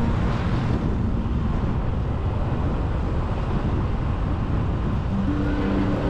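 Steady road and wind noise of a moving vehicle, heard from on board as it drives along a paved road, heaviest at the low end.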